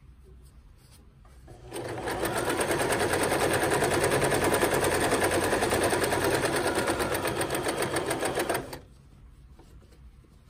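Electric domestic sewing machine stitching a French seam in cotton fabric: it starts up about two seconds in, runs at a steady speed with a rapid, even needle rhythm for about seven seconds, then stops.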